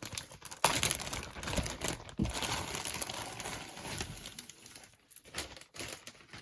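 A packaging bag crinkling as it is opened and handled. The crackling is loudest over the first few seconds and thins out to a few scattered crinkles near the end.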